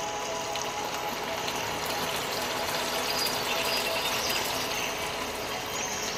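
Red snapper sambal gravy simmering in a pan: a steady bubbling sizzle.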